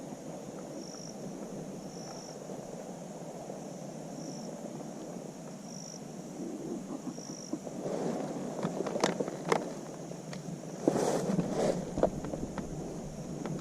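Outdoor background with a short, high chirp repeating every second or two, then rustling and crackling movement through brush from about eight seconds in, with a few sharp snaps and the loudest rustle near the end.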